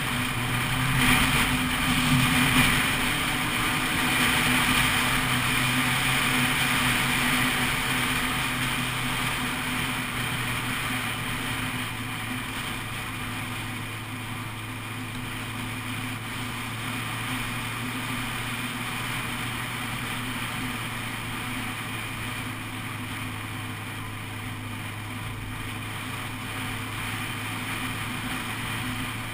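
Honda CBF600 SA motorcycle's inline-four engine running at an even cruise under way, with wind noise. It is loudest in the first few seconds, then settles to a steady, slightly quieter drone.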